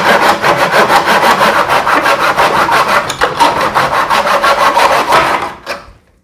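Hand backsaw with a steel blade (Black+Decker) cutting a strip of wood at 45 degrees in a mitre box: quick, even back-and-forth strokes. The strokes stop a little over five seconds in as the blade cuts through.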